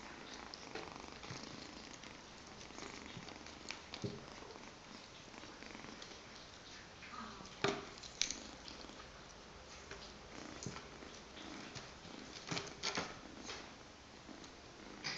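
Exotic Shorthair kitten purring steadily while it plays with a wand toy. Scattered taps and soft knocks come from its paws and the toy on the cloth-covered table, with two sharp clicks about halfway through and a cluster of clicks near the end.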